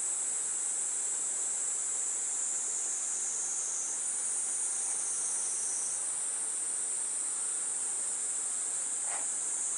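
Steady high-pitched insect chorus, a dense shrill buzz that holds unbroken throughout.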